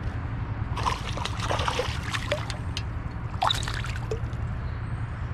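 Shallow river water trickling and splashing, with clusters of small splashes about a second in and again around three and a half seconds, over a steady low rush of moving water.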